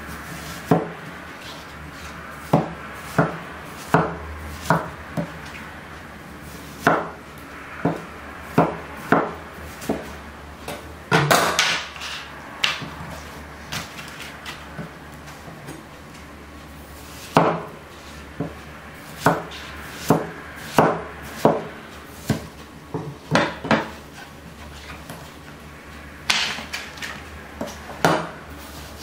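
Large knife cutting watermelon on a wooden cutting board: irregular knocks of the blade striking the board, some in quick runs, with a pause of a few seconds about halfway.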